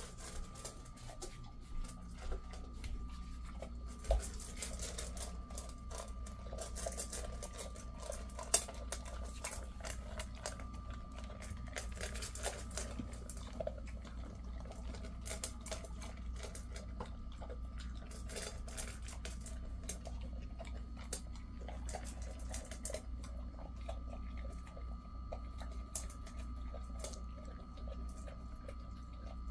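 A Jindo dog working his mouth in a stainless steel bowl on a raised feeder: a dense, uneven run of small wet clicks and taps against the metal. Two sharper knocks come about four and eight and a half seconds in.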